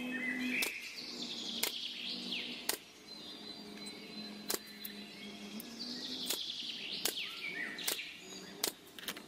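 Birds chirping in the background in repeated quick sweeping calls, with scattered sharp clicks and taps and a faint steady hum.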